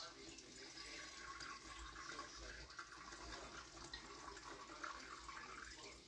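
Water running from a kitchen tap, filling a pan for steaming.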